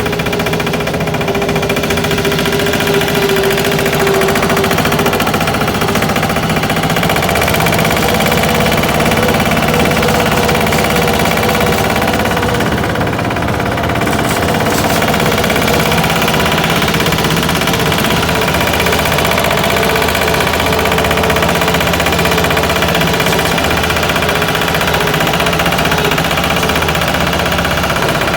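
Small 'patpat' diesel engine running steadily with a knocking beat.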